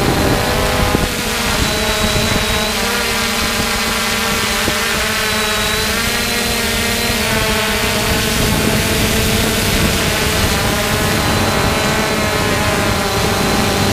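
3DR Solo quadcopter's four motors and propellers whirring in flight: a steady hum of several tones whose pitches shift slightly up and down, with a thin high whine above.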